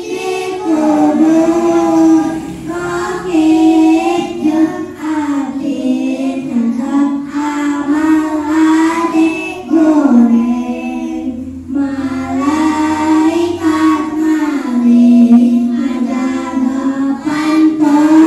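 Young boys singing a melody together into microphones, unaccompanied, in short phrases with a brief pause about two-thirds of the way through.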